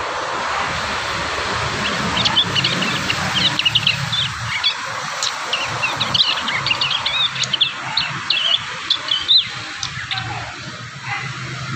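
Young prinias chirping in quick, irregular runs of short, sharp high notes, a juvenile bird still working out its song. A steady hiss and a low hum run underneath.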